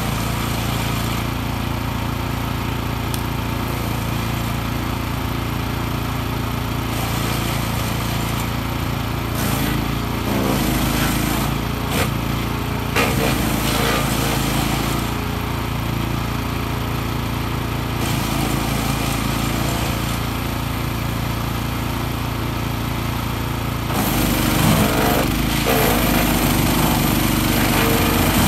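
Wood chipper's 14 hp petrol engine running steadily under load, with rough bursts of chipping noise as branches are fed through the chute, once about a third of the way in and again near the end.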